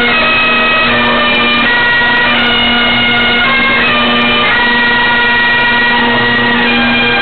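Highland bagpipes playing a tune together: steady drones under a chanter melody of held notes that step to a new pitch about once a second.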